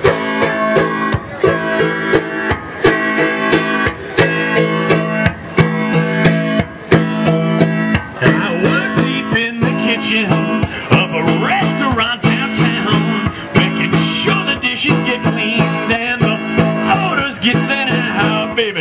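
Banjo strummed in a steady rhythm with a live band: the instrumental lead-in of a country song. About eight seconds in, a wavering higher melody line joins.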